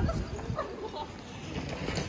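Night-time street ambience: short snatches of indistinct voices from passers-by over a steady low rumble of wind on the microphone.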